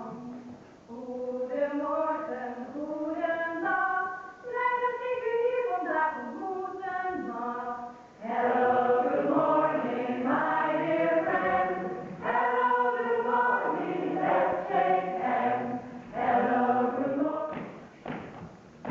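A choir singing a melody in stepping sung notes; the sound grows fuller and louder about eight seconds in, and the singing breaks off near the end.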